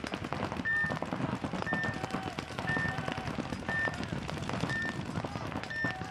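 Electronic start-signal countdown on a tournament paintball field: short, high beeps about once a second, with a few lower beeps among them, counting down to the start of the point. Rapid popping of paintball markers runs underneath.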